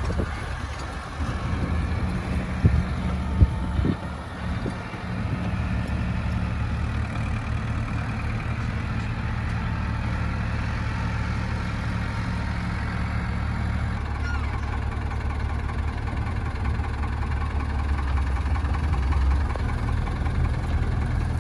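An engine running at a steady speed, with a few sharp knocks in the first few seconds.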